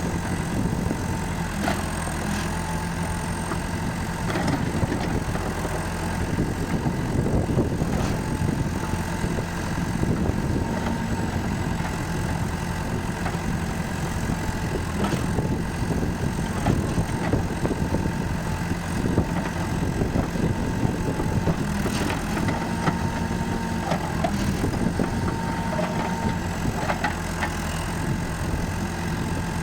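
Komatsu FAI 898 backhoe loader's diesel engine running steadily, with scattered short clicks and knocks.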